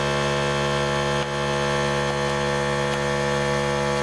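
A steady, unchanging hum made of many even pitched tones, with a light knock about a second in.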